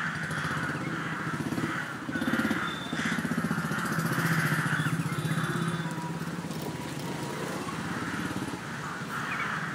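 FPV racing drone's motors and propellers buzzing, the sound swelling and easing again and again as the throttle changes.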